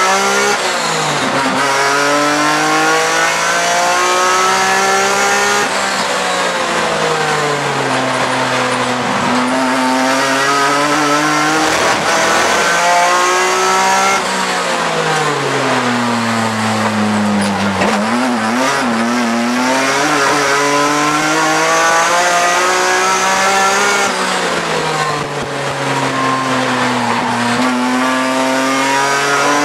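BMW E46 M3 race car's straight-six engine at racing speed, heard from inside the cabin. The engine note climbs hard through the gears and sweeps down as the car brakes and downshifts for corners, then climbs again, several times over.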